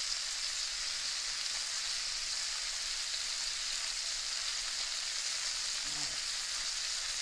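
Cornstarch-coated prawns sizzling steadily as they sear in hot oil in a wok.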